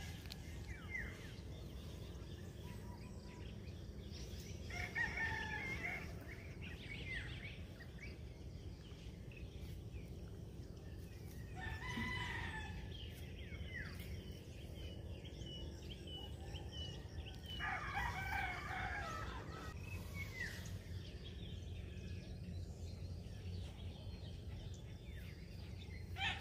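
Roosters crowing three times, about six seconds apart, with small birds chirping in between.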